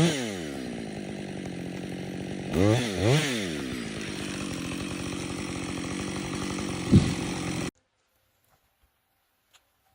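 Two-stroke chainsaw engine falling from high revs to idle, revved up and back down once at the start and twice about three seconds in, then idling steadily. A single sharp knock comes near seven seconds, and the sound cuts off abruptly less than a second later.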